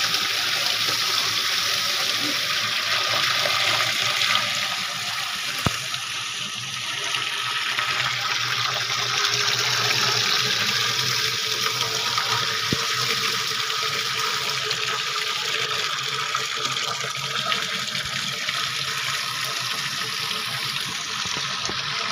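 Strong stream of water gushing from a hose into a half-filled rusty metal drum, splashing steadily into the water inside. A sharp click about six seconds in and another near thirteen seconds.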